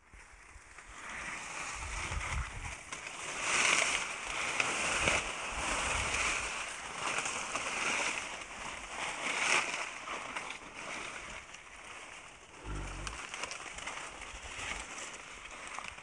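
Dry grass stalks rustling against someone pushing through them on foot, in uneven swells, with a brief low thump about thirteen seconds in.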